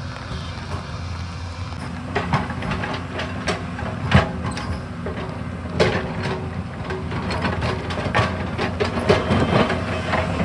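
Excavator diesel engine running steadily, with a stream of knocks and clatter from the digging that comes thicker from about two seconds in.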